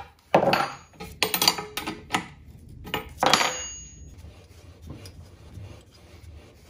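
A mallet knocking on a cast-iron drill press column: a quick run of metallic clanks, some ringing briefly, over the first three and a half seconds. After that comes quieter scraping and rubbing of metal as the cast base and table are worked loose and slid off the column.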